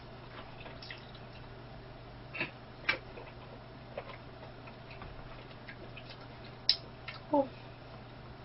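Quiet eating sounds: a few soft, scattered clicks and taps of a fork and dessert packaging while chewing, over a low steady hum.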